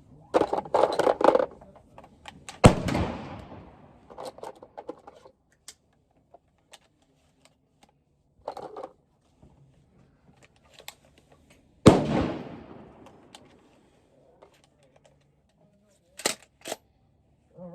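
Two 12-gauge shotgun shots about nine seconds apart, each a sharp blast followed by a long echoing tail. Shorter clicks and clatter come before, between and after the shots.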